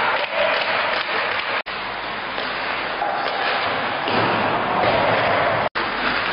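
Crowd noise in an ice hockey arena, a steady din of many voices, broken twice by a split-second dropout where the sound cuts out completely.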